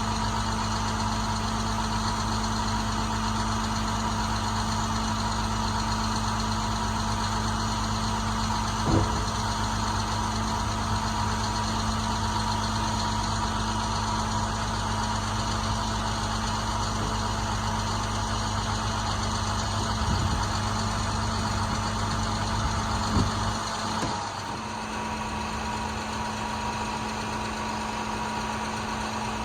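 International 4300's MaxxForce DT diesel engine idling steadily, with a few short knocks along the way. Near the end the deepest part of the sound drops away and the idle carries on lighter.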